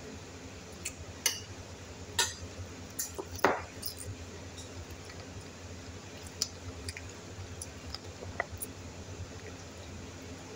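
Scattered light clinks and taps of a metal spoon and fingers against a ceramic dinner plate during a meal, a dozen or so, the loudest about two and three and a half seconds in, over a low steady hum.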